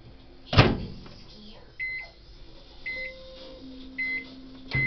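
A loud knock about half a second in, then a kitchen appliance's electronic beeper sounding four short, high beeps about a second apart.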